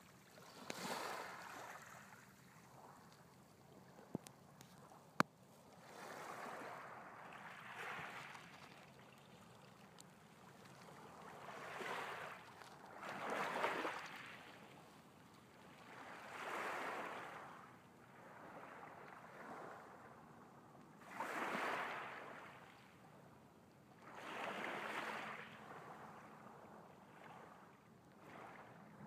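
Small waves lapping on a pebble beach, each wash swelling and fading every few seconds. Two sharp clicks about four and five seconds in.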